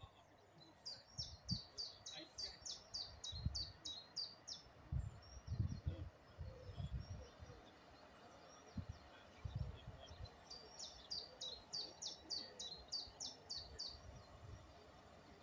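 A small songbird singing twice, each song a quick run of about a dozen high, downward-sliding notes lasting about three and a half seconds. Irregular low thumps sound underneath through the first half.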